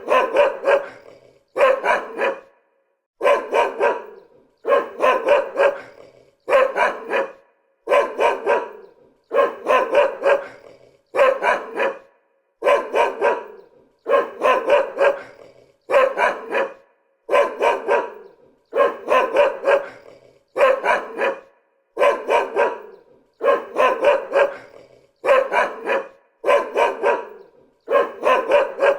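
A dog barking in bursts of two or three barks, the same burst repeating at an even pace about every second and a half with short gaps of silence between.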